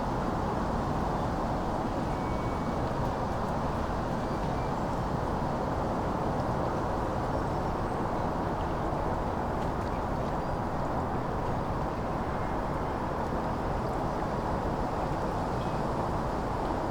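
Steady autumn wind mixed with the even hum of distant road traffic crossing a bridge, with no single event standing out.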